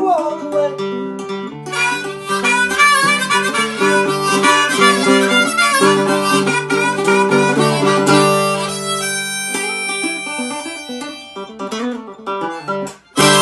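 Harmonica in a neck rack playing an instrumental break over a strummed ukulele. The harmonica thins out in the second half, and the song ends on one last loud strum.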